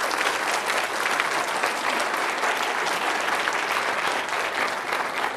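Lecture-hall audience applauding steadily, a dense patter of many hands clapping, welcoming a speaker to the podium.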